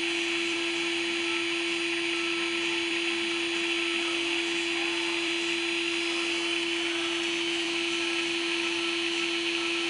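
Steady hum of a small electric motor with a constant hiss of rushing air, unchanging throughout.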